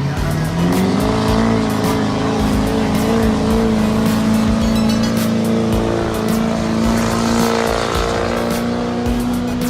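Diesel pickup truck engine revving up hard within the first second, then held at high revs under load with a slight wavering pitch.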